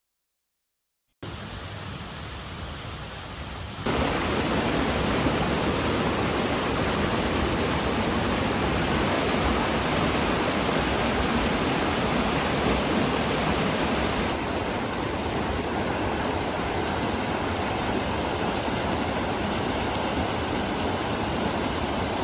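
Mountain stream water rushing in a steady, even wash. It starts after about a second of silence, gets louder about four seconds in and changes tone slightly a little past halfway.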